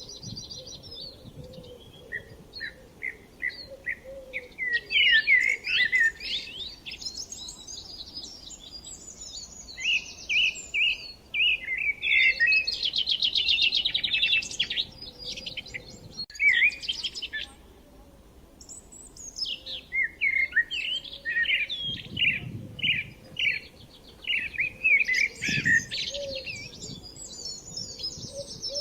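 Several songbirds singing in overlapping phrases of quick chirps, whistles and a rapid trill, in clusters separated by brief lulls.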